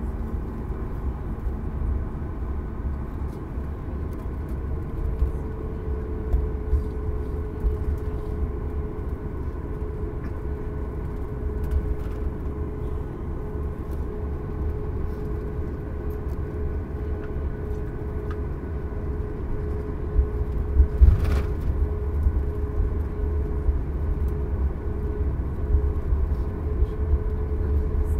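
Inside the cabin of a taxiing Boeing 737 MAX 8: a steady low rumble from the wheels and its CFM LEAP-1B engines at taxi power. A steady hum joins about five seconds in, and a single thump comes about three quarters of the way through.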